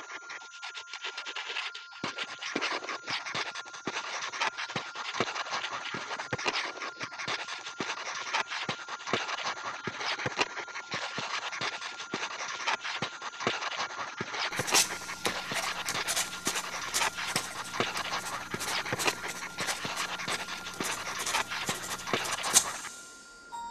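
Abstract electronic sound-art texture: a dense, scratchy crackle of small clicks over a steady high tone. It gets brighter and harsher, with a low hum added, about two-thirds of the way through, then cuts off abruptly near the end.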